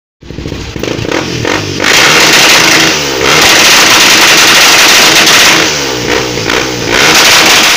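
Motorcycle engine with an open, cut exhaust, revved repeatedly while standing. It starts with a low, uneven pulsing at idle, then comes several long, loud revs, the longest lasting about two seconds, with quick blips in between and a last rev near the end.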